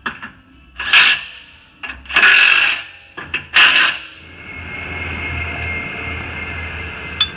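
Workshop tool noise: a few short, harsh scraping bursts, then a steady mechanical whine that starts about four seconds in.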